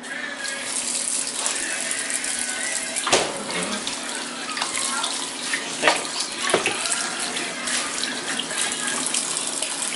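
Kitchen faucet running a steady stream into a stainless steel sink while raw steaks are rinsed by hand under it, with a few short louder splashes as the meat is handled.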